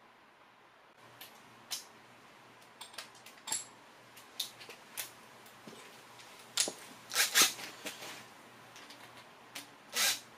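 Irregular sharp clicks and clanks of hand tools and metal parts being handled during timing-chain work on a bare engine, with a louder short burst near the end.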